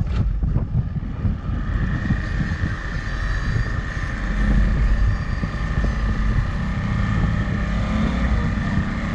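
Motorboat engine running steadily while underway, with wind buffeting the microphone.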